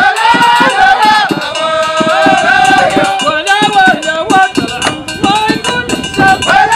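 A traditional Moroccan folk troupe performing: men's voices singing a melody over percussion beating a steady rhythm of about three to four strokes a second.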